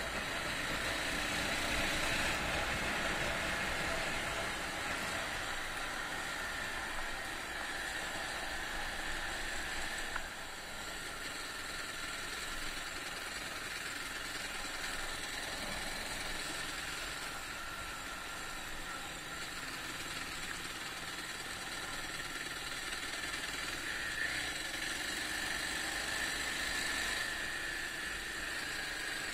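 Honda XR250's single-cylinder four-stroke engine running steadily under way, mixed with wind and road noise; the level dips slightly about ten seconds in.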